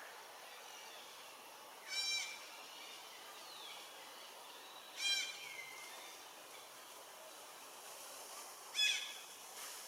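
Three short, high-pitched animal calls, spaced about three to four seconds apart, over a steady outdoor background hiss.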